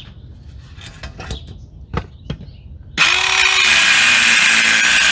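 Cheap battery-powered compact circular saw starting suddenly about three seconds in and cutting through a 2x4, running loud and steady. Before it, a few light knocks and clicks.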